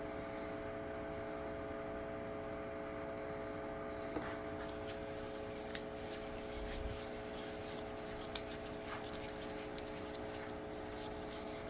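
A steady hum of several held tones, with a few faint clicks and taps from about four seconds in.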